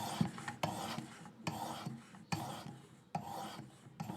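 Hard S35VN steel knife blade drawn across a sharpening stone in repeated rasping strokes, about six of them, one every two thirds of a second or so. This is the fine-grit finishing stage of putting a mirror edge on the blade.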